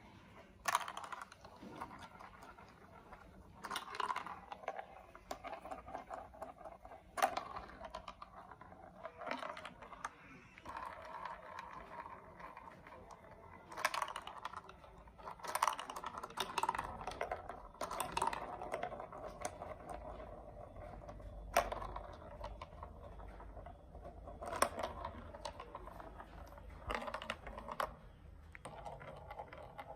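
Small hard plastic building-block and marble run pieces clicking and clattering against each other as they are handled, with irregular sharp clicks, a few louder knocks and runs of light rattling.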